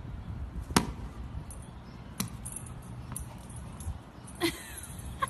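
Two sharp knocks about a second and a half apart over a low, steady background, with a short faint sound near the end.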